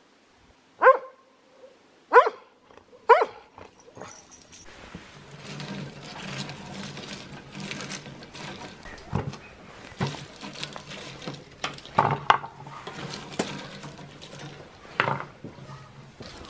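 A dog barks three times, about a second apart, in the first few seconds. Then walnut shells clatter and click as hands sort cracked walnuts on a stone stove top, with a few sharper knocks.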